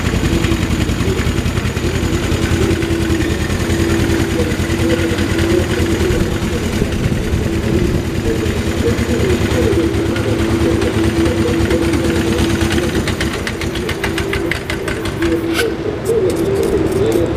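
2001 Suzuki GS500F's air-cooled parallel-twin engine idling steadily through an aftermarket exhaust muffler. A fast, light ticking joins in near the end.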